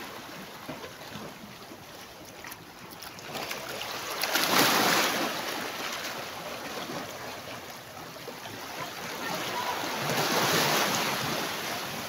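Small waves washing onto a pebble and rock shore, with two louder swells of surf, one a few seconds in and one near the end.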